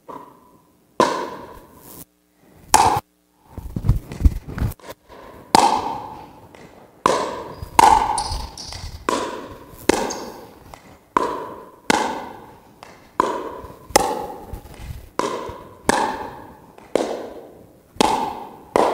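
A pickleball rally: paddles hitting the hollow plastic ball back and forth, a sharp pock about once a second, each one echoing in the hall.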